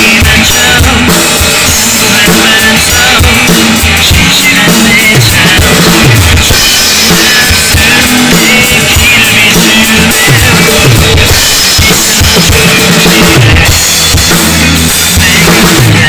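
Drum kit played hard along to a recorded rock-style worship song: kick drum and snare in a driving beat with frequent crash cymbal hits, over the song's bass and band.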